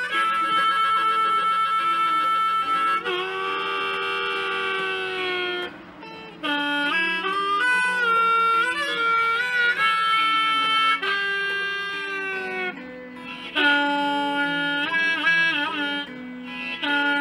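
Blues harmonica played into a microphone: long held chords and bent, wavering notes, with a short break about six seconds in, over an electric guitar accompaniment.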